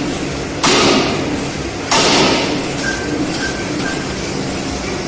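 Forging hammer working: two sudden loud bursts with a hiss, about a second and a quarter apart in the first two seconds, then a steady machinery hum.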